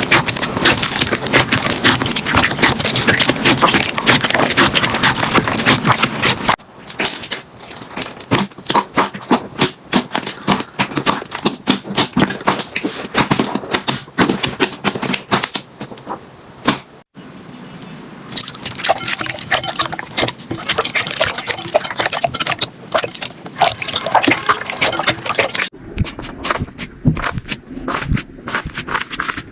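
Slime being squeezed and poked by hand, a dense run of sticky crackling and popping clicks. The texture changes abruptly at cuts about six, seventeen and twenty-six seconds in, as one slime gives way to another.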